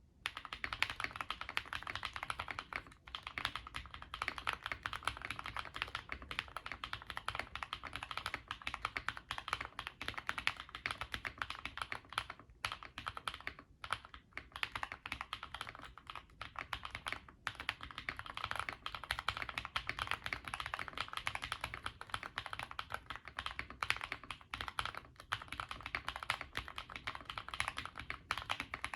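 Fast, continuous typing on an Epomaker Galaxy65 mechanical keyboard with KTT Blueberry Ice Cream switches, an FR4 plate and double-shot keycaps, a dense run of keystroke clacks broken by a few brief pauses.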